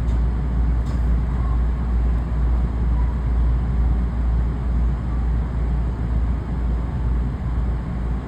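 JR West commuter train running between stations, heard from inside the carriage: a steady, deep rumble of wheels and running gear on the track.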